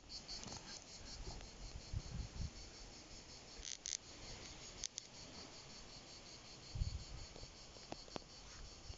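Faint, high-pitched insect chirping in a rapid, even pulse, fading near the end, with a few soft low thumps.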